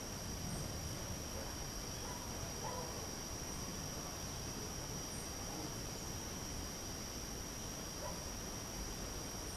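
A steady, high-pitched insect drone that holds one even pitch throughout, over a low rumble.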